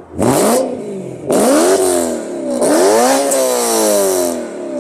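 Tuned BMW M3's V8 with test pipes and quad exhaust, revved hard three times while parked. Each blip climbs quickly and falls back; the third is held a little longer and winds down slowly near the end.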